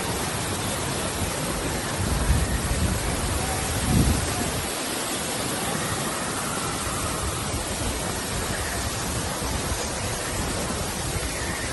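Steady rushing hiss, with wind buffeting the microphone in two low gusts about two and four seconds in.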